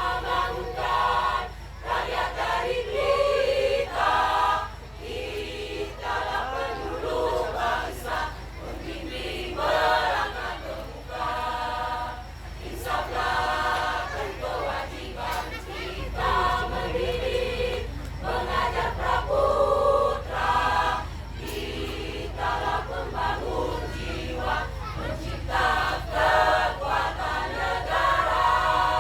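Choir singing in phrases of held notes, with short breaks between phrases.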